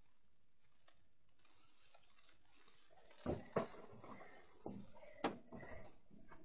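Almost nothing for about three seconds, then a few scattered knocks and rustles with one sharp click, from someone moving about and handling things close to the microphone.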